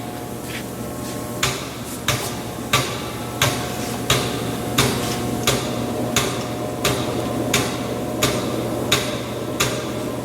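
Moore No. 3 jig grinder running: a steady machine hum with a sharp click repeating evenly, about one and a half times a second, starting about a second and a half in.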